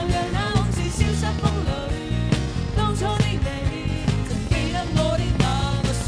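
Live acoustic band performing a Mandarin pop song: male and female voices singing over strummed acoustic guitars and a steady beat.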